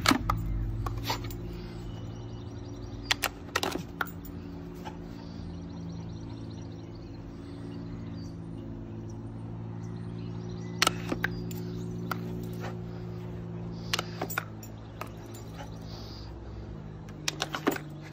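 Scattered sharp clicks and knocks from a border collie working the plastic paw pedal of a step-on dog water fountain, with a cluster near the end as it jumps about, over a steady low hum.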